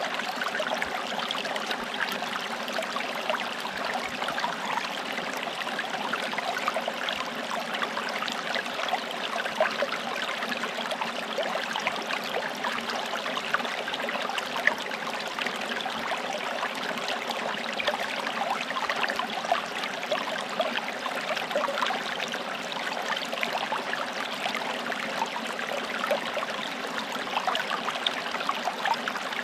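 Forest stream running steadily over rocks, an even rushing babble with fine trickling and splashing detail throughout.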